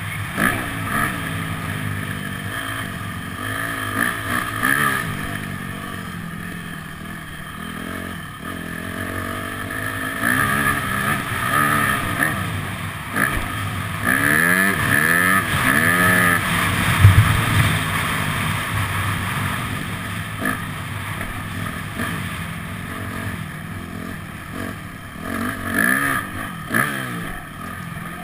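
Motocross bike engine revving, its pitch rising and falling again and again as the rider accelerates and rolls off. A single loud thump about two-thirds of the way through.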